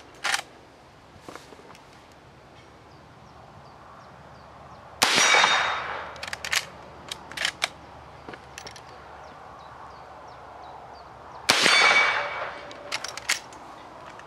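Two shots from a Chiappa 1892 lever-action carbine in .357 Magnum, about six and a half seconds apart, each echoing away slowly. Sharp clicks after each shot come from the lever action being worked.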